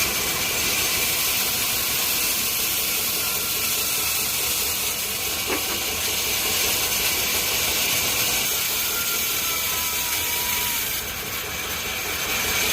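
Sawmill saw running steadily as it cuts a plank from a log, a continuous sawing hiss that eases a little near the end.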